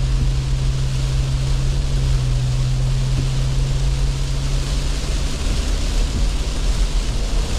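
Car cabin noise on a wet road: a steady low rumble and a broad hiss of tyres and water. A steady low hum runs under it and fades out about five and a half seconds in.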